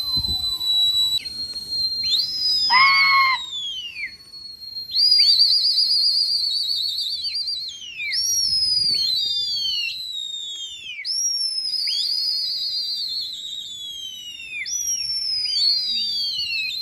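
Pigeon flyers whistling to their flock in flight: a dozen or so loud whistles, each rising sharply, holding with a warble, then sliding down, several of them overlapping.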